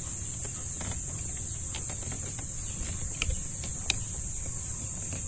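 A few light clicks and taps of a plastic interior car door handle being turned and pushed into the door panel, the sharpest about four seconds in, over a steady high-pitched hiss.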